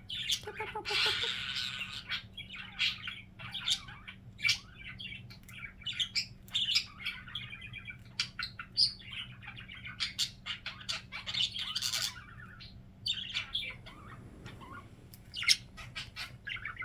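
Budgerigars warbling and chattering in a dense, irregular stream of short chirps, whistles and squawks.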